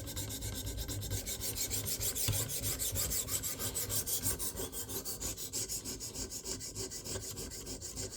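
A 300-grit sharpening stone on a guided rod rasping back and forth along the edge of a flexible fillet knife in quick, regular strokes. This is the stage that works out the scratches left by the coarser previous grit.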